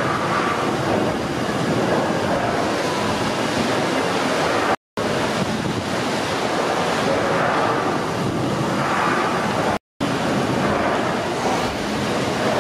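1868 Hawthorn beam pumping engine running: a steady rushing noise of steam and working machinery with slow swells, broken by two brief silences about five and ten seconds in.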